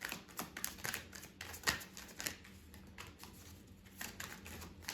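A deck of tarot cards being shuffled and handled by hand: a run of irregular, sharp clicks and flicks of card edges, several a second.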